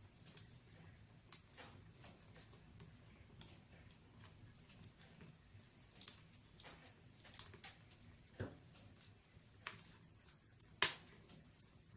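Wood fire burning in a fireplace, crackling with irregular sharp pops, the loudest pop coming near the end.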